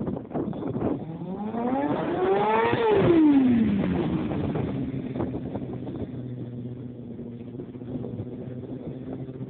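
Sportbike engine revving up, its pitch climbing for about two seconds, then dropping quickly as the bike slows into a stoppie, after which the engine runs on steadily at a low pitch.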